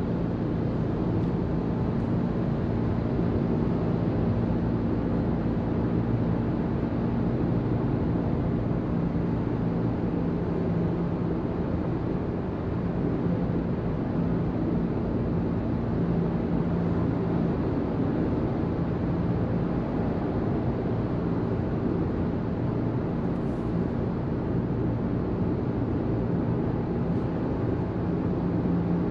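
Fiat Panda 1.0 BSG mild hybrid cruising at steady speed: its naturally aspirated 1.0-litre three-cylinder petrol engine runs at constant revs under a steady haze of road and wind noise, with a low, even hum.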